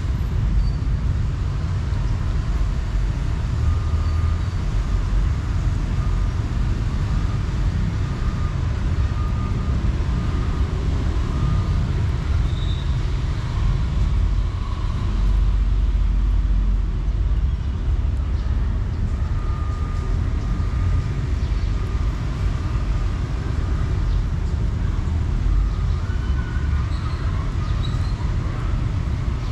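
A steady low rumble of outdoor background noise, with faint short high tones now and then.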